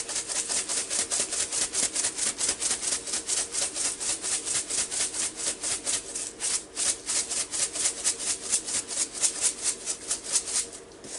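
Seasoning rattling in a large plastic shaker jar of lemon pepper, shaken hard over raw chicken wings in a bowl at about five shakes a second. There is a short break about halfway, and the shaking stops near the end.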